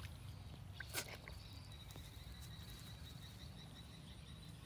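Quiet outdoor ambience with a faint, steady high-pitched insect call, and one short knock about a second in.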